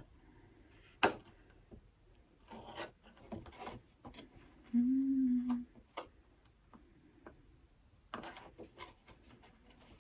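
Quiet tabletop handling while icing biscuits: scattered light clicks, taps and soft rubbing. About five seconds in comes one short hummed note, the loudest sound.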